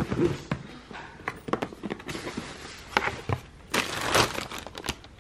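A cardboard shoebox being opened and the tissue paper inside crinkling and rustling, with irregular knocks and scrapes of the box and lid. The crinkling is loudest about four seconds in.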